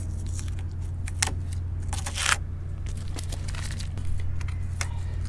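Green FrogTape masking tape being peeled off a freshly painted plastic van grille: scattered short crackles and clicks, with a longer tearing rip about two seconds in, over a steady low hum.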